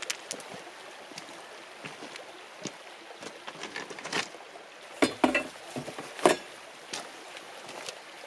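Folding camp furniture being handled at the back of an SUV: a plastic table top and metal frames clatter and knock, with the loudest knocks about five and six seconds in, and footsteps crunch on loose pebbles, over a steady background hiss.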